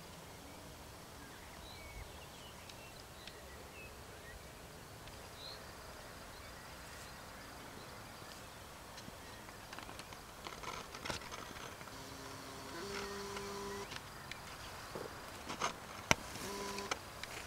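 Quiet outdoor ambience with faint scattered chirps. From about ten seconds in come clicks and knocks, the loudest near the end, along with a few short, steady low hums.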